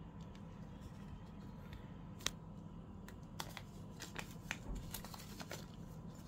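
Faint handling noise of a clear glass vase and its paper hang tag being turned in the hands: scattered small clicks and paper rustles, one sharper click about two seconds in and more of them in the second half, over a steady low hum.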